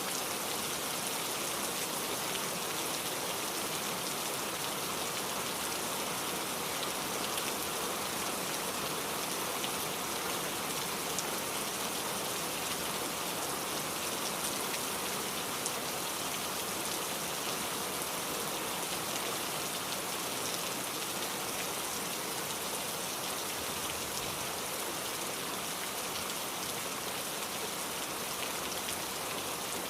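Heavy rain falling steadily, an even hiss of drops with faint scattered patters on a surface.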